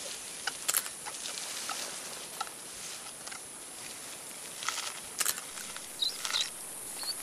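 Mountain gorilla feeding on leafy plants: scattered crackles and crunches of stems and leaves being pulled and chewed, over a steady high hiss, with a few short high chirps about six seconds in.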